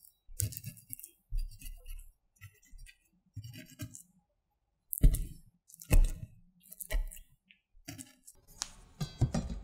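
Kitchen knife scoring the fat edge of a thick raw pork loin chop: the blade pushes through the fat in short strokes and its tip knocks on the wooden cutting board, giving a series of clicks and taps. The firmest knocks, with a dull thud, come about five, six and seven seconds in.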